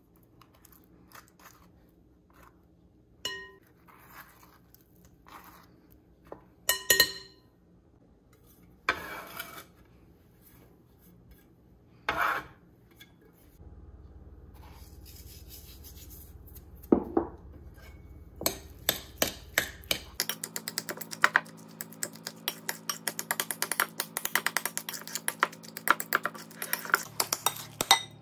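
Scattered knocks and clinks against a glass bowl, two of them ringing briefly, as avocado is scooped into it. Then, from about two-thirds of the way through, a utensil mashing avocado in the glass bowl gives a rapid run of clinks and scrapes, several a second.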